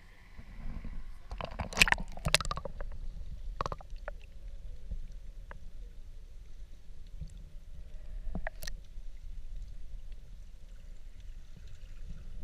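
A camera dunked into seawater, with a splash about two seconds in, then the muffled low rumble of sound heard underwater, broken by a few faint clicks.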